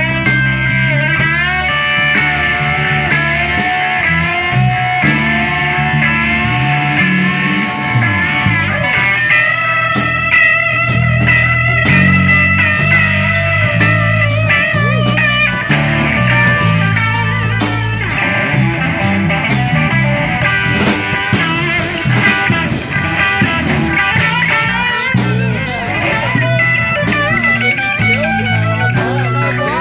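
Live blues-rock band: an electric guitar plays a lead solo of sustained notes with bends and vibrato over a low line and drums.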